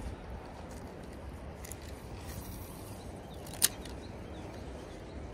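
Steady low rumble of wind and flowing river water, with one sharp click about two-thirds of the way through.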